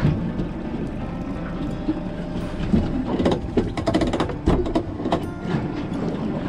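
A boat under way with its motor running steadily, and a run of irregular clattering knocks through the middle.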